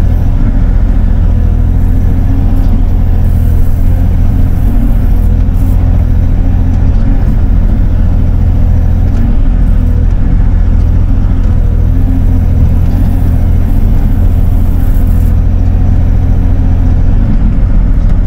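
Diesel engine of a Bobcat E42 mini excavator running steadily under work, heard from inside the operator's cab as a loud, low, even rumble.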